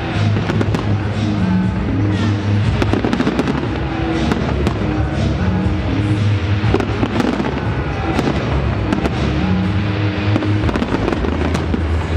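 Dense aerial fireworks display: rapid, irregular bangs and crackles of bursting shells, with music carrying a steady bass underneath.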